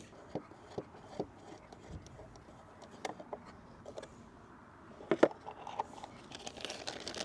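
Small clicks and scrapes of a screwdriver and fingers working the plastic underside of a Segway Navimow robotic mower, opening the accessory port cover; one sharper plastic click about five seconds in.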